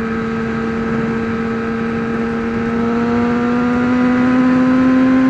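2003 Honda CBR600RR's inline-four engine running steadily at highway speed, its revs climbing slowly through the second half, over a steady rush of wind and road noise.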